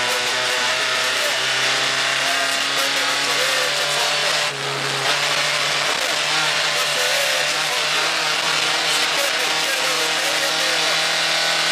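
A rally car's engine running hard at high revs, its pitch rising and falling a little, with a brief dip in revs about four and a half seconds in.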